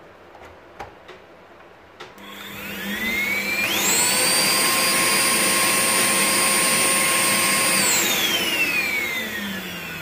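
Arçelik S6840 vacuum cleaner motor switched on with a click about two seconds in. It speeds up in two stages to a steady high whine, then is switched off near the end and winds down with a falling whine. The rise to high power comes with the power-adjust circuit connected.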